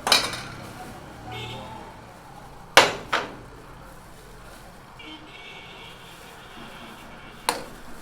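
Sharp knocks of kitchen bowls and utensils being handled: one at the start, a quick double knock about three seconds in, the loudest, and one more near the end.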